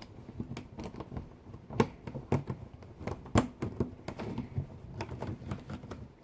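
Irregular sharp plastic clicks and snaps from handling a YJ Yulong V2 M magnetic 3x3 speed cube while a removed piece is pushed back into place.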